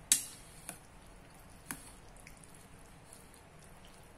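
A few sharp clicks of eating utensils against a stainless steel bowl of noodles, the first and loudest just after the start, two weaker ones within the next two seconds, then faint ticks.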